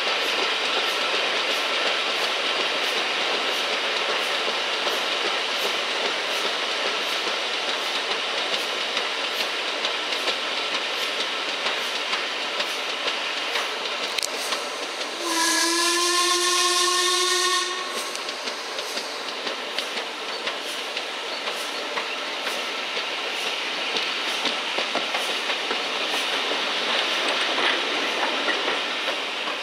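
Steam-hauled train running steadily, wheels clicking over rail joints in an even rhythm. A little past halfway the steam locomotive, LMS Black Five 45428, sounds its whistle once for about two seconds, rising slightly in pitch: the warning blown at a whistle board.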